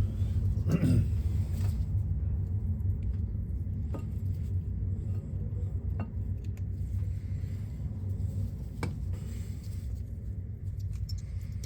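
A steady low rumble, with a few faint clicks of metal brake caliper parts being handled and checked for free movement.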